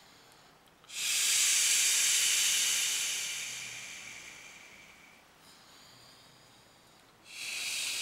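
Long, forceful breaths blown out with a hiss, timed with deep hand pressure on the belly in an abdominal chi massage. The first starts sharply about a second in and trails off over about three seconds; a second one starts near the end.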